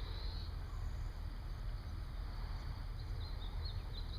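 Small birds chirping in short, quick notes near the start and again from about three seconds in, over a steady low outdoor rumble.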